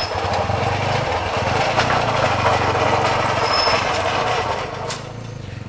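An engine running steadily, dropping away about five seconds in, with a brief high squeal about three and a half seconds in.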